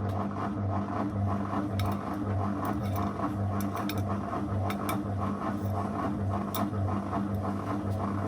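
Zanussi FL984CN front-loading washing machine running with the drum turning: a steady motor hum that pulses about twice a second, with a few sharp clicks scattered through.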